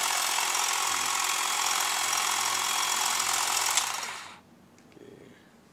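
Stihl HSA 26 cordless shrub shears running with the shrub blade fitted: a steady, high buzz of the battery motor driving the reciprocating cutter blades. It winds down and stops about four seconds in.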